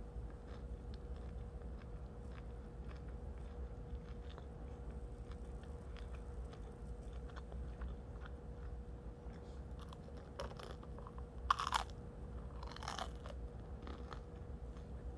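Close-up chewing of bread, with soft wet mouth clicks throughout and two louder crunches about eleven and thirteen seconds in.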